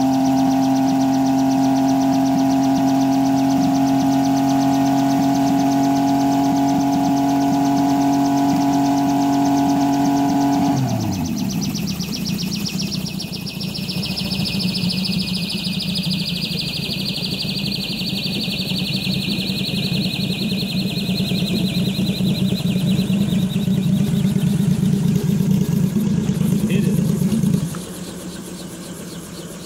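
MH-1 helicopter engine running at a steady held RPM with the rotor turning, then throttled back about eleven seconds in. The engine runs on at a lower, rougher note while a high whine falls slowly in pitch as the rotor spins down, and the engine cuts off a couple of seconds before the end.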